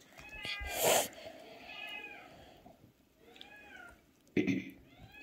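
A cat meowing over and over, about four drawn-out meows each rising and then falling in pitch. A short, loud noisy burst comes about a second in, and another near the end.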